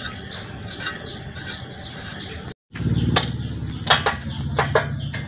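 Rusty steel leaf springs being lifted and shifted on a steel chassis frame, clanking sharply several times over a low steady hum.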